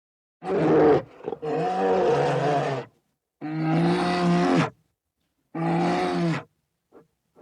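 A big cat roaring: three long, loud calls separated by silent gaps, the first broken briefly about a second in.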